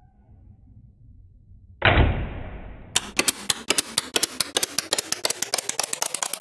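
Electroacoustic music made from household sounds: a single heavy thud about two seconds in that dies away over a second, then a rapid run of sharp clicks that speeds up and grows denser.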